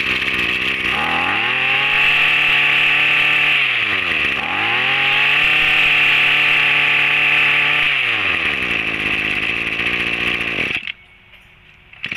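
Small two-stroke brush cutter engine run up to full throttle, a steady high buzz. The revs drop briefly about four seconds in and climb back, then fall away after about eight seconds, and the sound cuts off near eleven seconds.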